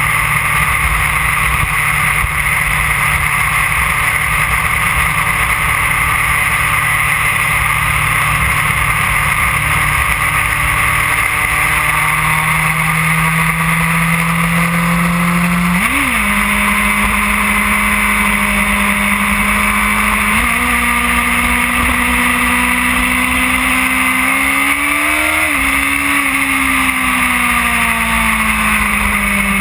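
2008 Yamaha R1's inline-four engine running at road speed under a heavy rush of wind noise. The engine note climbs slowly, steps up sharply twice midway, then falls away steadily over the last few seconds as the bike slows.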